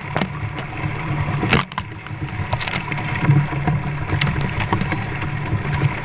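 Fish-stocking truck at work as trout are released into the lake: a steady low rumble with scattered clicks and knocks, briefly cut off about a second and a half in.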